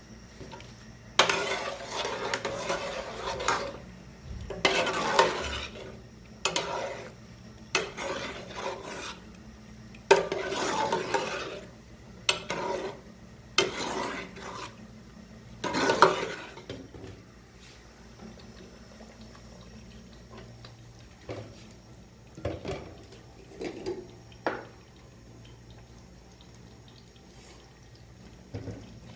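A metal spoon stirring and scraping against metal cookware in repeated clattering spells of a second or two, as flour is worked into nihari. The stirring thins out near the end to a few lone clinks.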